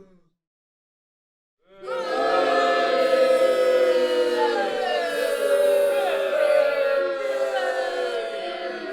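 A crowd booing: many voices hold long, wavering "boo"s together. It starts after about a second and a half of silence.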